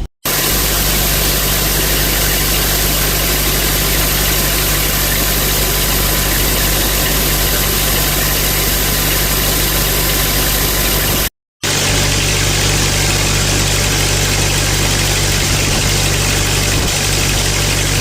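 Large farm machine engine running steadily at harvest, a constant low hum under a wide mechanical hiss, with two brief dropouts where the footage is cut.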